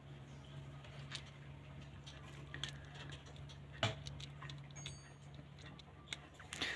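Faint scattered clicks and taps of hands handling an electric room heater's parts while it is closed back up, with one sharper click about four seconds in, over a faint steady low hum.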